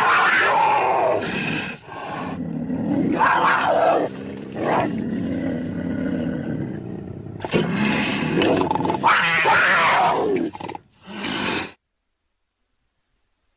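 Cougar calls: a series of loud, rough vocalizations, one after another with short gaps. The sound then cuts off abruptly to dead silence about two seconds before the end.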